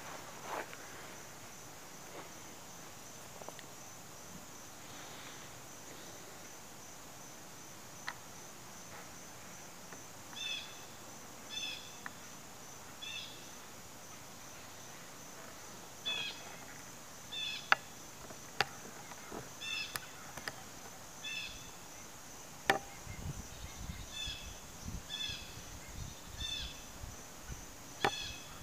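Insects, likely crickets, keep up a steady high pulsing trill. From about ten seconds in, groups of short high chirps join them. A few sharp clicks and, in the last few seconds, low handling rumble come from the camera being moved.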